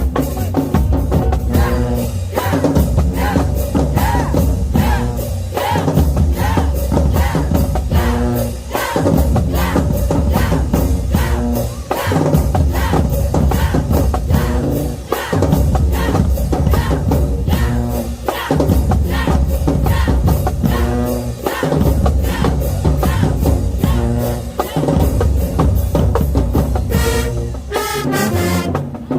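A school band playing loud music, with pounding bass and snare drums keeping a steady beat under horns.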